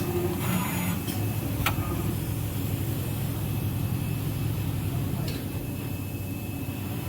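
Heavy-duty industrial sewing machine running with a steady low hum, with two sharp clicks about two seconds and five seconds in.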